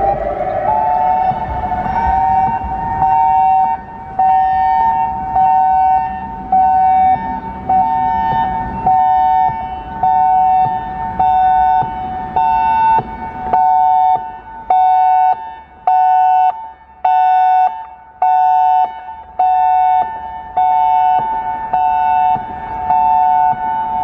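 Federal Signal EOWS 612 electronic siren starting up with a short rising tone, then sounding a hi-lo signal: a high and a low tone alternating steadily about once a second. It is loud, and it fades somewhat through the middle as the rotating horn array turns away.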